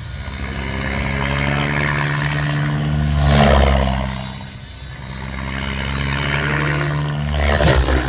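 Radio-controlled helicopter flying aerobatic manoeuvres: the steady, low hum of its rotor, swelling loudly as it swoops close, about three and a half seconds in and again near the end.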